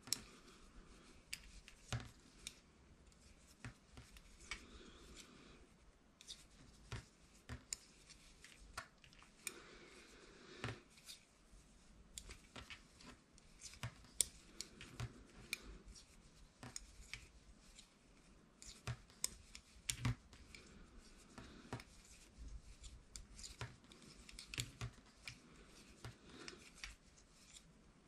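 Knitting needles clicking and tapping together at an irregular pace as stitches are worked by hand, with a faint rustle of yarn between the clicks.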